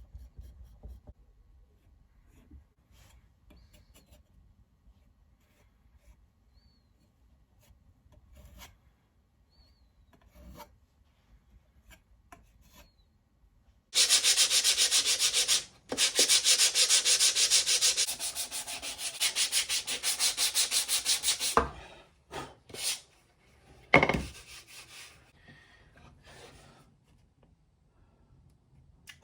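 Sandpaper rubbed on oak in quick back-and-forth strokes. It starts about halfway through, runs for several seconds with one short break, then comes in a few short strokes. Before that there are only faint scattered clicks.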